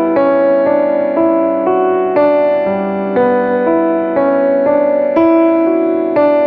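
Background music: an electric piano playing a steady run of sustained chords, the notes changing about twice a second.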